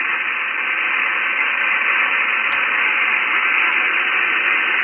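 Icom IC-7610 transceiver's receiver hiss: steady band noise on 40 metres in lower sideband with no station on frequency, a thin telephone-like hiss. The noise on the band is high, which the operator calls terrible.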